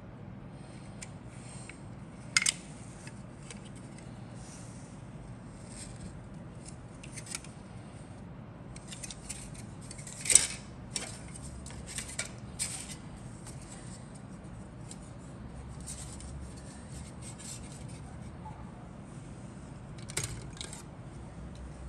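Injection-moulded plastic model kit parts being handled and set down on a cutting mat: scattered light clicks and taps with some faint rubbing, the sharpest knock about ten seconds in.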